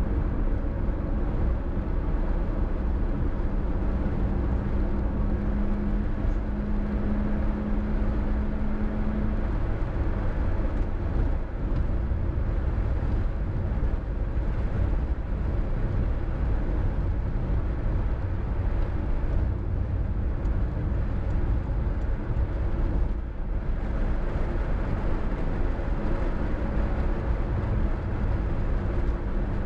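Car driving at highway speed: steady low engine and tyre rumble. A steady hum comes in from about three seconds to about nine seconds, and again near the end.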